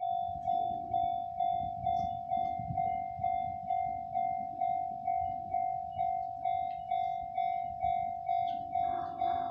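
Japanese level-crossing electronic alarm bell ringing, a single clear tone repeating a little over twice a second over a low rumble. Near the end a second layer of sound joins in.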